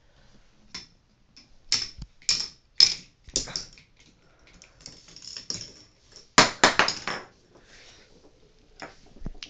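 Plastic clicking and clattering from a K'nex ball machine, irregular sharp clacks with a dense burst of rapid clatter about two-thirds of the way through.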